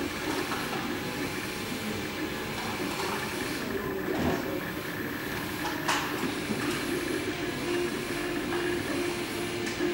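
MakerBot desktop 3D printer running a print: its stepper motors hum in shifting tones as the extruder head moves, turning into a pulsing, stop-start note in the second half, over a steady mechanical whir. A couple of short sharp clicks come about four and six seconds in.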